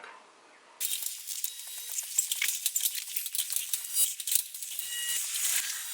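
Dense rattling with many small sharp clicks over a steady hiss, starting abruptly about a second in.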